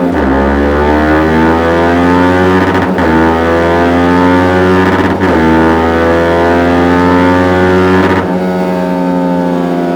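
Yamaha MT-125's single-cylinder four-stroke engine through a Dominator full aftermarket exhaust, revving up under load. Its pitch climbs steadily, with brief dips about 3, 5 and 8 seconds in as it shifts up through the gears.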